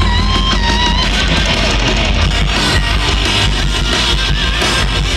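Loud rock music with strummed, distorted electric guitar, played live over a concert sound system.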